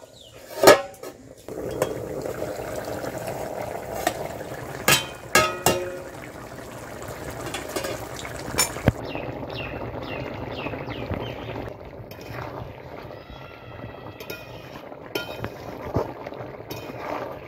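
A metal lid clanks onto a wide aluminium kadai about a second in. Then the curry simmers with a steady bubbling, broken by several sharp metal clinks against the pan, and a metal spatula stirs the curry near the end.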